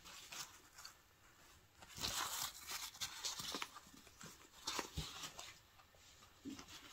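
A small zippered fabric handbag being handled close up: faint rustling of the fabric and the zipper being worked open, in a few short bursts starting about two seconds in.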